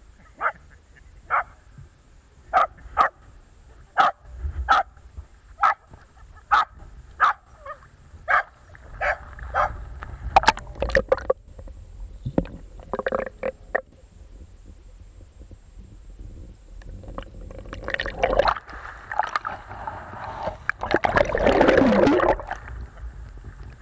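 Small dog barking in a long run of short, sharp barks, a little more than one a second, with a few more after a brief pause. Later water sloshes and gurgles over the submerged microphone, swelling loudest near the end.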